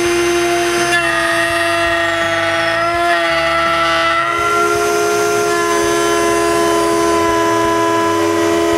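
Power tool cutting grooves for T-track in plywood, its motor running with a steady, high whine that shifts slightly in pitch about four seconds in.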